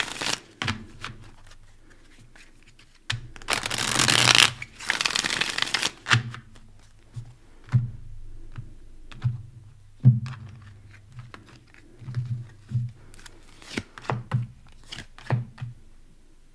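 A tarot deck being shuffled in two long rushing bursts a few seconds in, followed by a string of short taps and slides as cards are dealt and laid onto the cloth-covered table.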